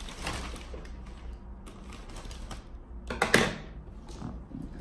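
Packaging being handled on a tabletop: the rustle of a plastic courier mailer and a cardboard box, with small clicks throughout and one sharper clack about three seconds in.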